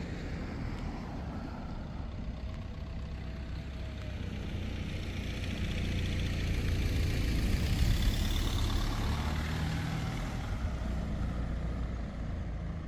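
A car driving past on the street, its engine and tyre noise swelling to a peak about eight seconds in and then fading, over a steady low rumble.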